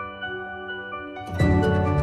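Background music: soft held tones with no beat, then at about 1.4 s a fuller, louder section with a strong bass comes in.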